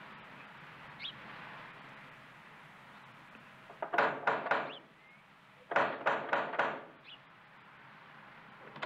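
Knocking on a wooden front door: two rounds of about four quick raps, the second round starting about two seconds after the first.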